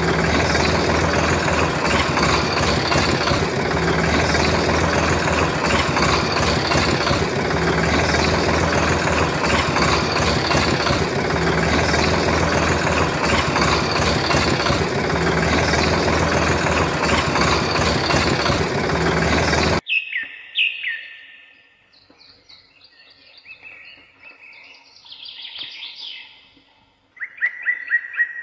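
A loud, dense soundtrack with a steady engine-like drone and a pattern that repeats every few seconds cuts off abruptly about twenty seconds in. After it, birds chirp and give short falling trills.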